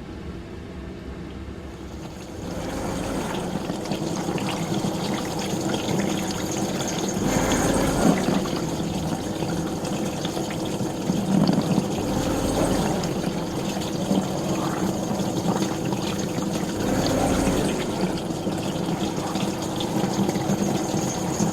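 Dishwasher running: a low hum, then about two seconds in water starts spraying inside the tub. The spraying carries on steadily, swelling louder every few seconds.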